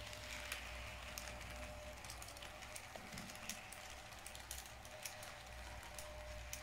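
Heljan model MO railcar and its coaches running on model railway track: faint, irregular clicking of the wheels over rail joints and points, over a steady thin hum.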